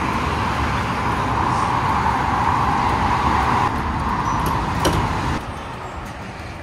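Petrol pump nozzle dispensing fuel into a car's tank: a steady rushing hiss of fuel flow. A sharp click comes about five seconds in as the flow stops, and the sound then falls away.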